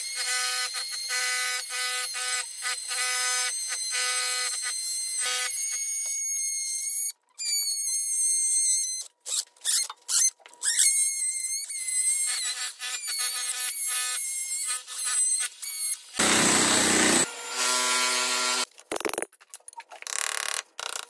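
Oscillating multi-tool cutting into engineered wood floorboards in a series of short runs, its high whine wavering as the blade bites. Near the end, a few sharp knocks of a hammer driving a chisel to break out the damaged board.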